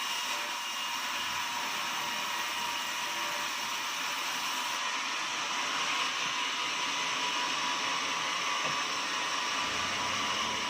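Sawmill machinery running steadily: a constant high-pitched whine over a hiss, with no breaks.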